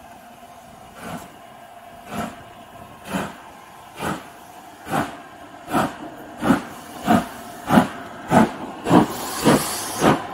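Steam locomotive chuffing as it approaches and draws level, its exhaust beats growing louder and quickening from about one a second to about two a second. A hiss of steam rises near the end as the engine comes alongside.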